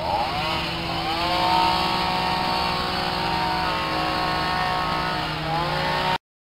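An engine revving up to a steady high speed, its pitch dipping and climbing again near the end before it cuts off suddenly.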